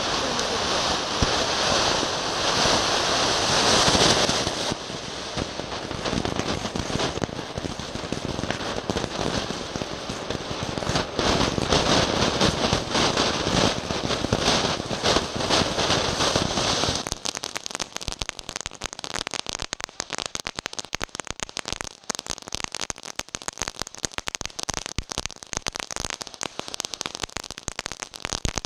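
Consumer firework going off with a dense, steady hissing crackle that, about seventeen seconds in, thins to a rapid patter of fine crackles.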